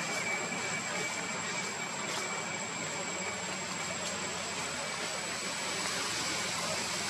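Steady outdoor background noise: an even hiss with a thin, high steady tone running through it and a few faint clicks in the first seconds.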